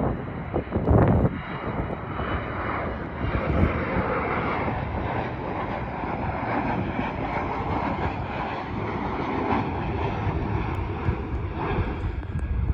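Airliner engines running, a steady dense rushing noise. Wind buffets the microphone in the first second or so.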